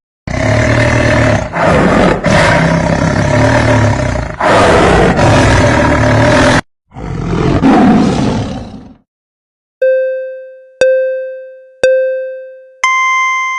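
A tiger roaring and growling in long, loud bouts, two of them, followed by a countdown: three short electronic beeps about a second apart and a higher final tone.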